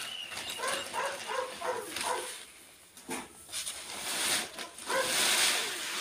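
A dog barking, a quick run of about five short barks in the first two seconds and one more about five seconds in. Near the end comes a loud hissing rustle of granular fertilizer being shuffled and scraped across the floor.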